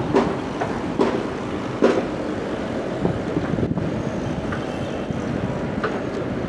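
Steady low background rumble, with three sharp metallic knocks in the first two seconds as a steel wire-rope sling is handled against the generator's metal frame.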